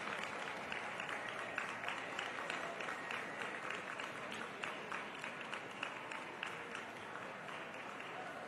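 Audience applauding steadily, many hands clapping at once and easing off slightly toward the end.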